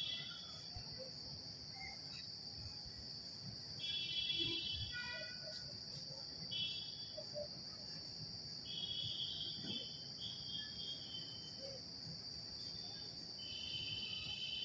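Insects droning steadily at a high pitch, with short high calls breaking in over the drone about five times.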